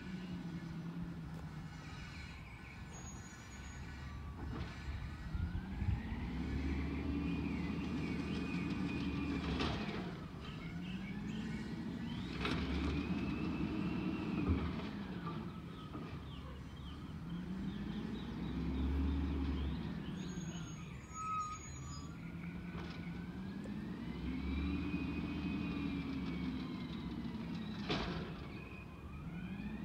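Peterbilt 320 garbage truck with an Amrep automated side-loader body working curbside carts: the engine and hydraulic pump rise and fall in pitch about five times, each a slow rev-up and drop-off as the arm cycles. A few sharp bangs come as carts are lifted and dumped into the hopper.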